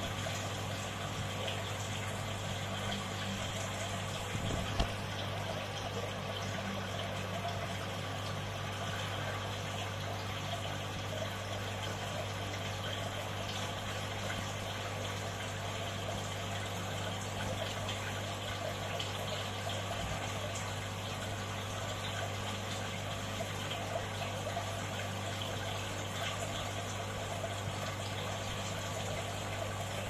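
Steady hum of an aquarium pump with a soft running-water hiss, unchanging throughout; a single short knock about five seconds in.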